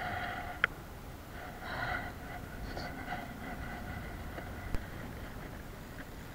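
Steady low rumble of wind on the microphone, with a sharp click under a second in and another about five seconds in as the spinning reel is handled.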